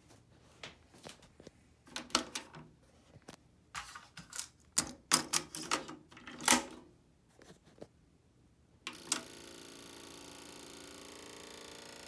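Plastic clicks and clacks of a Pioneer CT-W302R double cassette deck's cassette door and transport buttons being worked by hand. About nine seconds in, a steady whir with a faint hum starts as the deck's mechanism runs, on a deck whose owner says it needs a new belt.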